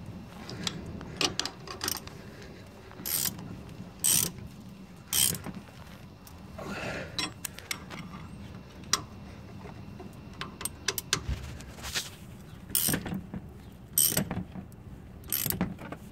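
Hand ratchet or socket wrench clicking in short, irregular bursts as the ball joint spacer bolts are tightened to torque, with a few louder metallic knocks in between.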